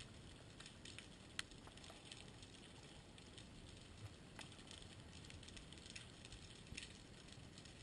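Near silence underwater: a faint crackle with a few sharp clicks scattered through it.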